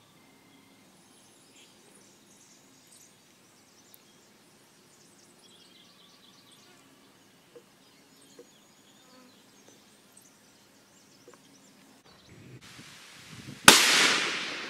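Faint outdoor quiet with small chirps, then near the end a single sharp rifle shot from a suppressed 6.5 Grendel AR-15 build, fitted with a Griffin Armament Recce 7 suppressor. The shot trails off in a long echo.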